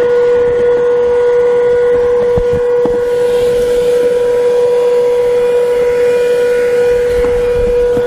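Comfyer 22.2 V cordless cyclonic vacuum running with its crevice tool: a loud, steady, high motor whine over the rush of air as it sucks dirt off a rubber floor mat. A couple of light knocks come about a third of the way in.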